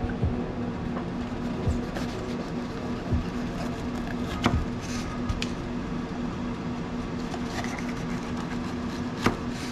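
Kitchen knife slicing a green bell pepper on a paper plate, with a scattering of sharp knocks as the blade cuts through and strikes the plate and counter, the loudest about halfway and near the end. A steady low hum runs underneath.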